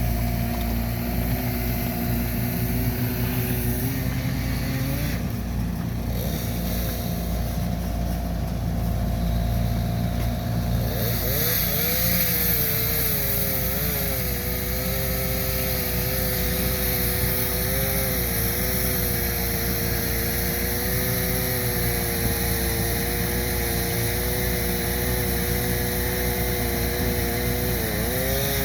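Engine of a compact earth-moving machine running steadily, its pitch sagging and recovering as it works under changing load, with a dip near the end.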